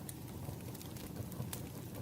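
Campfire crackling: a steady low rushing of the burning fire with a few sharp pops, the clearest about one and a half seconds in.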